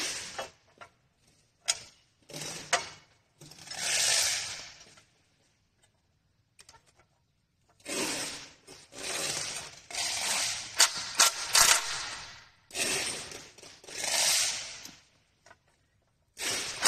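Cordless impact driver running in several short bursts, driving screws into a plastic side cover panel. The longest bursts, near the middle, carry a rapid rattle of impacts.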